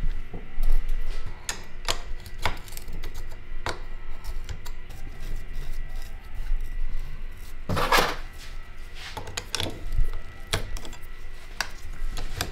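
Irregular light metallic clicks and clinks of steering-line fittings, washers and tools being handled on a steel workbench around a power steering rack, with a louder knock about eight seconds in.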